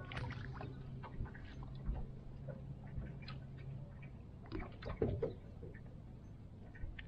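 Crappie being reeled in and swung aboard a fishing boat: scattered light clicks and taps from the reel and tackle, with louder knocks about five seconds in as the fish comes aboard. A low steady hum underneath stops about four seconds in.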